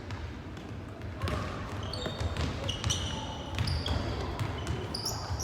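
Indoor ball game on a gym court: a ball bouncing and knocking on the floor, many short high sneaker squeaks, and players' voices.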